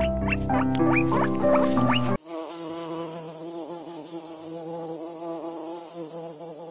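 Honeybee buzzing: a steady hum with a slightly wavering pitch, starting about two seconds in. Before it, louder steady tones with short rising chirps that stop abruptly.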